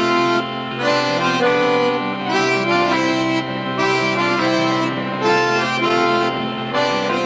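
Accordion music: a tune of short held notes changing a few times a second over a steady bass note.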